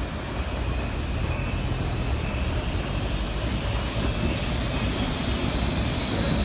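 Small saddle-tank steam locomotive running slowly toward the listener, a steady low rumble that grows slightly louder as it nears.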